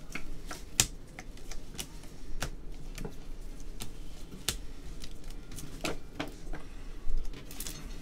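Trading cards being handled and laid down one by one on a table, making a string of irregular light clicks and snaps, about one or two a second, with a brief louder sound just after seven seconds.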